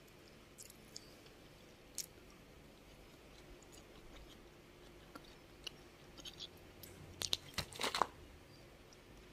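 Scattered light clicks and crackles of a clear plastic takeout container being handled, with a short run of louder crackling about seven to eight seconds in.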